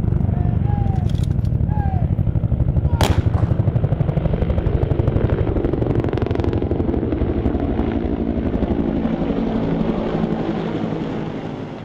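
Formation of Marine Corps Cobra and Huey helicopters flying low overhead, their rotor blades beating in a fast, even pulse. The sound is loudest a few seconds in and fades away near the end as the aircraft pass.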